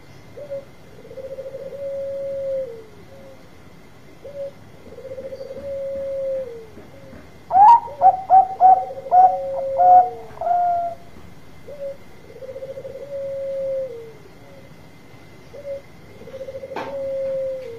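Zebra dove (Bangkok perkutut) cooing: a short note followed by a long rolling coo, repeated every few seconds. About halfway through comes a louder, higher run of about eight quick coo notes. A faint steady whine runs underneath, and there is a sharp click near the end.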